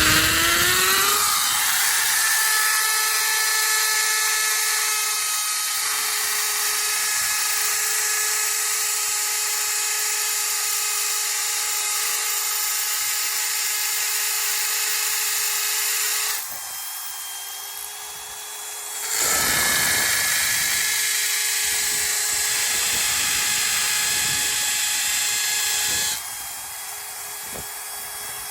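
Hammer drill with a concrete bit drilling holes into a masonry wall. The motor spins up in a rising whine about a second in and runs steadily. It eases off about sixteen seconds in, revs back up about three seconds later, and eases off again near the end.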